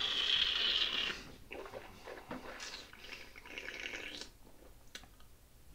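A wine taster draws air through a mouthful of red wine with a loud hissing slurp, then swishes and chews it around the mouth in several short bursts, with a small click near the end.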